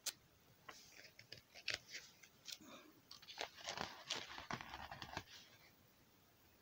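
Pages of a book being turned and handled: faint paper rustling and crinkling with small clicks and taps, stopping a little over five seconds in.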